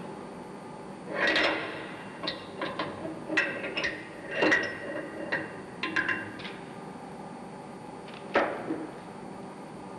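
Steel starting-valve parts and fitting tool clinking and knocking against each other and the bench as they are handled. A run of short, ringing metallic knocks over about five seconds, then one more near the end, over a steady background hiss.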